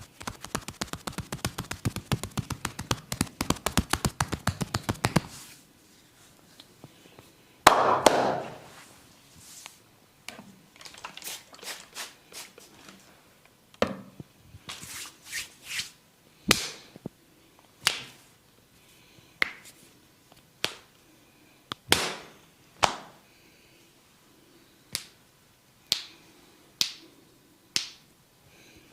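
A barber's hands at work in a massage: a fast run of tapping strokes for about five seconds, a loud slap a couple of seconds later, then a string of single sharp snaps about a second apart.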